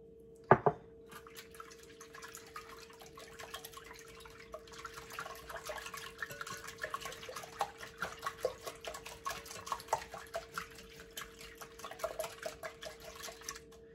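Wire whisk beating eggs and milk in a bowl: rapid wet clicking and sloshing. A single sharp knock comes about half a second in.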